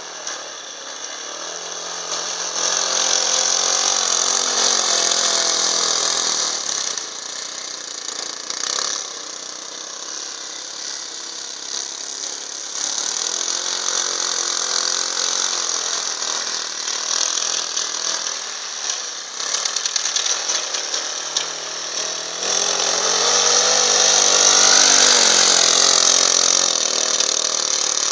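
Engine of a Leshy 2x2 all-wheel-drive motorcycle running as it is ridden, its pitch rising and falling with the throttle. It is loudest about three to six seconds in and again near the end.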